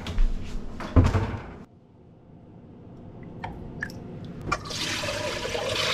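Handling knocks with a heavy thump about a second in, then, from about four and a half seconds in, a steady pour of black-bean soaking water splashing out of the pot through a colander.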